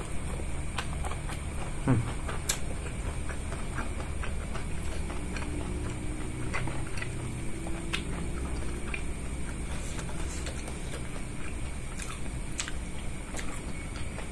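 Close-miked eating sounds: many small, wet mouth clicks and smacks as a man chews a mouthful of rice and noodles, over a steady low hum.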